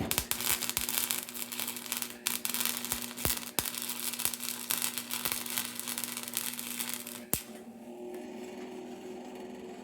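Electric arc welder laying a weld bead on steel: the arc crackles and spits for about seven seconds over a steady electrical hum, then cuts off suddenly, leaving the hum.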